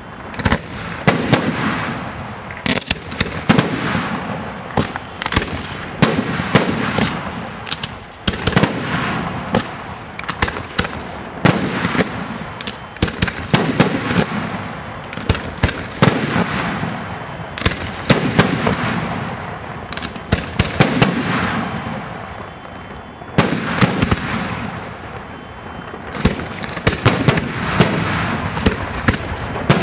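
Aerial firework shells bursting in quick succession: many sharp bangs one after another, with a rolling rumble of echo between them.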